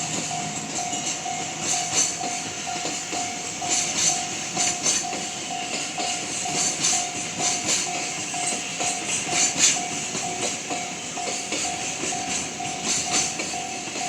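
Railway level-crossing alarm ringing one steady tone about twice a second, over the hiss and clatter of a passing train.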